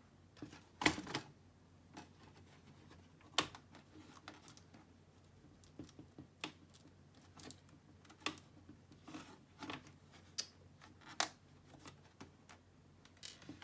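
Irregular small clicks and taps of plastic laptop case parts and screws being handled during disassembly, with a few sharper knocks standing out.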